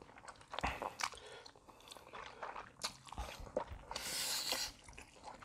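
Close-miked eating sounds of two people: wet chewing and small mouth clicks on spicy carbo noodles and king crab meat, with a short hissy noodle slurp about four seconds in.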